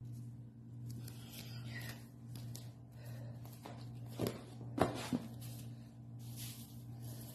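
Three footsteps on a hard floor, about four to five seconds in, over a steady low hum. Near the end comes a soft rustle as the edge of a rug is lifted off the floor.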